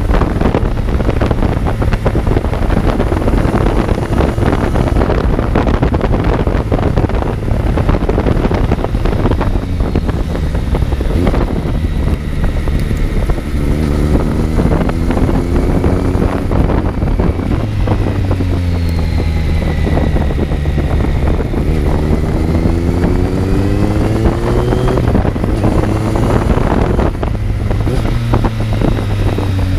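Kawasaki Z900's inline-four engine running under way, heard on board with heavy wind noise on the microphone. In the second half the engine pitch climbs several times as it revs up, dropping back between the climbs.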